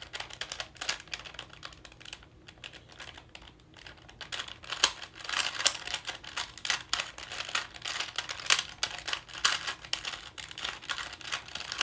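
A 2x2x4 Rubik's cuboid being turned by hand: a quick, irregular run of plastic clicks and clacks as its layers turn. It gets busier and louder about four seconds in.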